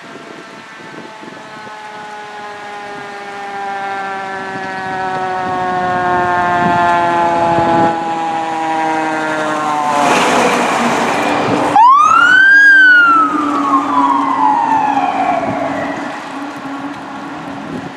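Fire truck siren on an emergency response. Its wail slowly winds down in pitch as the trucks approach, a loud rush comes as the ladder truck draws close, and near twelve seconds in the siren is spun up sharply and then coasts back down. The trucks' engines run underneath.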